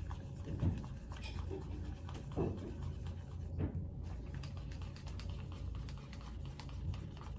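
A spatula stirring and scraping jelly mask mixed with water in a mixing bowl: a steady run of quick scratchy strokes as the mask is worked into a thick, honey-like paste.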